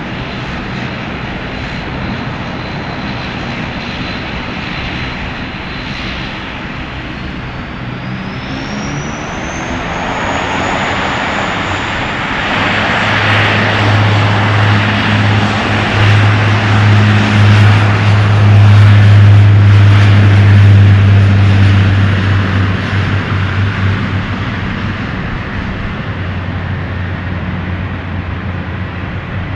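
Airliner engines passing by: a high whine climbs in pitch about 7 to 10 seconds in, over a steady low drone that builds to its loudest around 19 to 21 seconds, then eases off.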